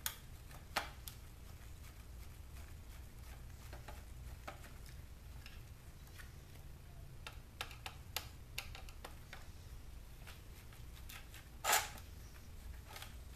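Scattered light clicks and ticks of a screwdriver and gloved hand working screws out of a circuit board mounted in a portable DVD player's plastic case, with one sharper click near the end, over a steady low hum.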